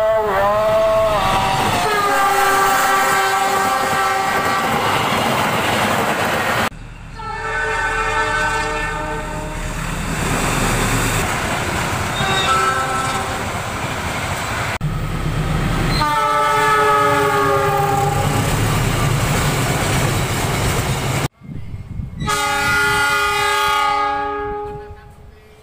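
Horns of KAI CC 206 diesel-electric locomotives sounding the Semboyan 35 signal, in about five blasts of a multi-note chord, several held for a few seconds. The first bends in pitch as the train passes. The blasts sound over the rumble and wheel clatter of the moving trains.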